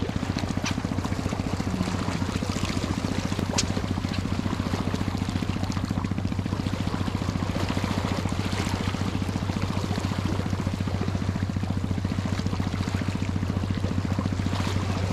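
Seawater gushing and churning up at the surface beside shoreline rocks, a steady pouring rush over a constant low hum.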